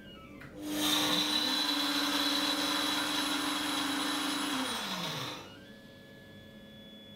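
VYUGA-3M laboratory mill starting up about half a second in and running at full speed for about four and a half seconds, a steady high motor whine over a dense grinding hiss as it mills sunflower seeds. Near the end it cuts out and winds down with a falling pitch.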